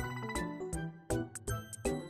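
Background music with a steady beat and a bright, tinkling melody.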